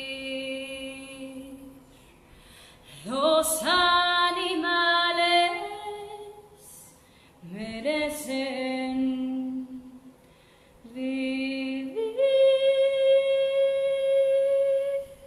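A woman singing solo a cappella in long held notes. Her phrases start about three, seven and eleven seconds in, each opening with an upward swoop. The last, highest note is held for about three seconds before cutting off.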